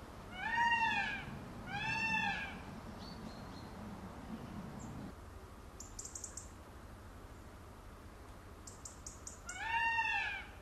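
Indian peafowl (peacock) calling: three loud wailing, cat-like calls that rise and fall in pitch, two in quick succession near the start and one more near the end.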